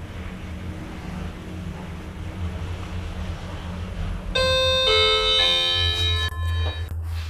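Lift running with a steady low hum, then about four seconds in an electronic chime plays a few descending notes: the lift's arrival signal.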